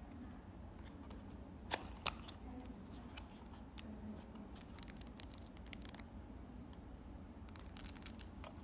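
Smart switch packaging being handled and opened: scattered light clicks and taps, with two sharper ones about two seconds in and another cluster near the end, over a steady low hum.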